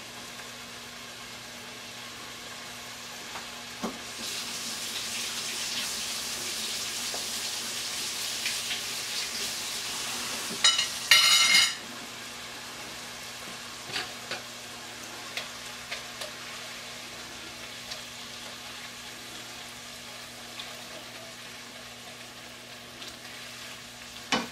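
Chopped onion, celery and carrots sizzling in oil in a cast iron Dutch oven, with a few light spoon taps; the sizzle grows louder for several seconds from about four seconds in. A brief, loud clatter a little before halfway, and stirring near the end.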